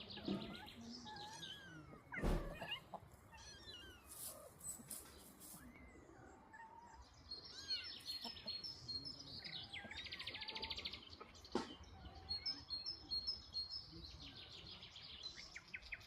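Small birds chirping and trilling, many short rising and falling calls with quick rattling trills, and a single thump about two seconds in.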